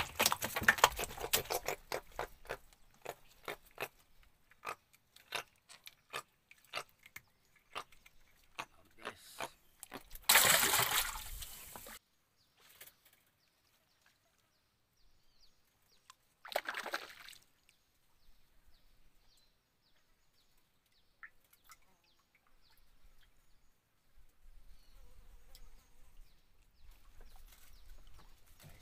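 Water dripping and splashing at a wooden boat's side as a freshly caught fish is handled: a dense patter of drips and small knocks at first, then separate drips, a louder rush of water about ten seconds in and a shorter splash about seventeen seconds in, with near-silent gaps between.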